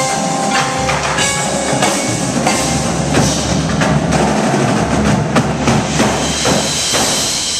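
Indoor marching percussion ensemble playing: a battery of marching snare, tenor and bass drums with a front ensemble of marimbas and suspended cymbals, a dense stream of drum strokes with ringing mallet notes.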